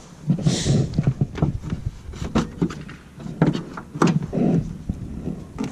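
Scattered clicks, knocks and rustles of a hand working the hood safety catch of a 2003 Subaru Legacy to open the hood, over a low rumble.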